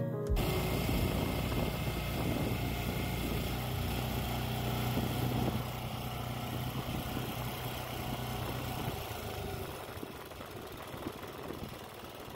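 Small gas engine of a trailer-mounted hydraulic post pounder running steadily at idle, dropping quieter about nine seconds in.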